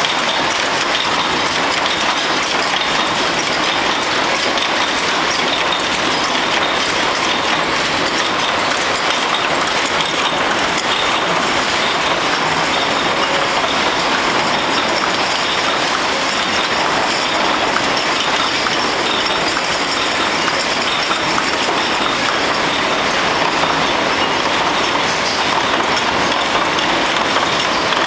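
Rows of flywheel mechanical punch presses stamping metal cups at once: a loud, dense, steady clatter of many rapid overlapping strikes.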